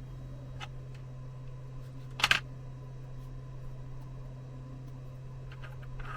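Steady low electrical hum, with a faint tick near the start and one sharp click about two seconds in, typical of small tools being handled on a workbench.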